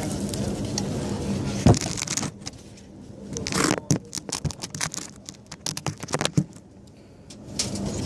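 Milwaukee M12 2429 compact cordless bandsaw running steadily for about two seconds, then stopping. A run of irregular clicks and scrapes follows as the cut piece of metal strut channel is handled.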